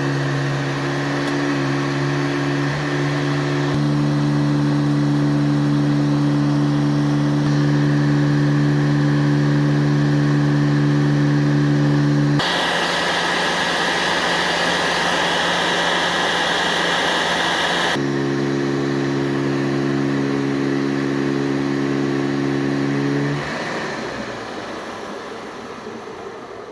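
Upright vacuum cleaner motor, a 1977 Hoover-built JCPenney Boxtop Convertible, running with a steady hum. For about five seconds in the middle it gives way to a higher rushing hiss of air, then the hum returns. A few seconds before the end the motor is switched off and winds down.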